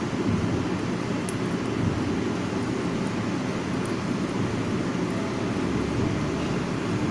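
Steady low rumbling background noise, with a few faint thin ticks.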